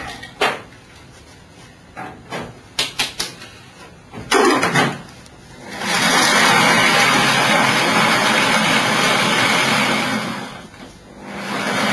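Electric stand mixer motor running steadily for about four seconds, stopping briefly and starting again near the end. Before it starts there are several knocks and clinks of utensils against the mixing bowl.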